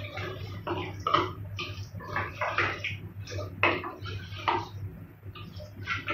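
Wooden spatula stirring beef and wet masala in an aluminium pressure cooker: irregular scraping and knocking against the pot, over a steady low hum.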